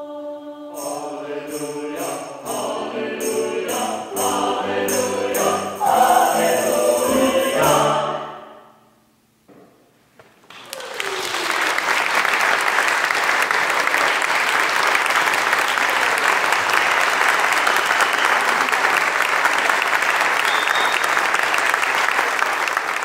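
Mixed choir singing the closing phrase of a hymn, which swells and fades away about eight seconds in. After a second or two of near silence, audience applause starts about ten seconds in and goes on steadily.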